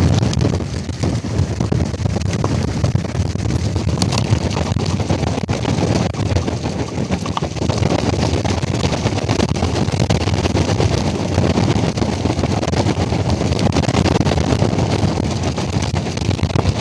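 Strong hurricane wind buffeting the microphone aboard a sailboat at anchor, a loud, steady rushing with gusty low rumble. It starts and stops abruptly.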